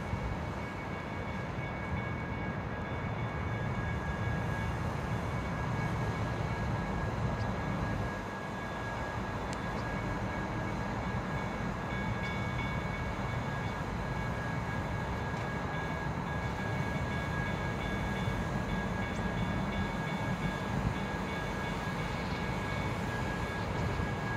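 Diesel switcher locomotive running with a steady low engine rumble as it moves slowly along the yard track, and a thin steady high whine above it.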